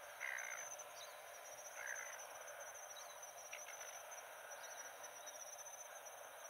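Faint, steady chirring of insects in the vegetation, with a fine pulsing, high-pitched buzz. Two brief soft chirps stand out in the first two seconds, and a few tiny ticks sound now and then.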